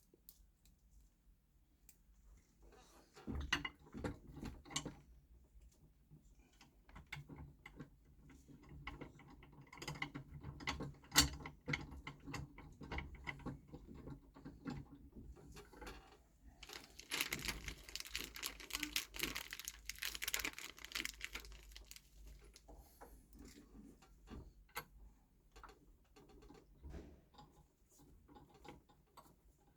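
Two countersunk screws being driven by hand into a monitor-arm desk clamp: scattered clicks, light knocks and rattles of metal parts, with a longer stretch of gritty scraping a little past halfway through.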